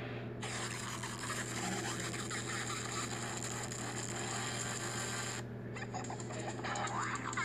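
Heavily distorted, effected logo soundtrack: a harsh, hiss-like noise that cuts in about half a second in and stops abruptly after about five seconds, then rapid crackling, all over a steady low hum.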